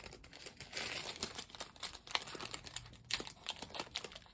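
Small plastic bags of diamond-painting drills being handled, giving irregular crinkling and sharp little clicks.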